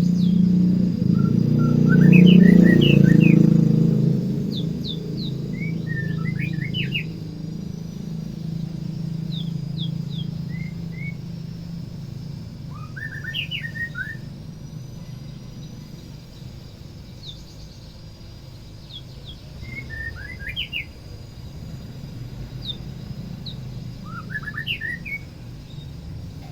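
A white-rumped shama sings short phrases of quick, sliding whistled notes, repeating every few seconds. Under the song is a low rumble, loudest a few seconds in, that fades away over the next several seconds.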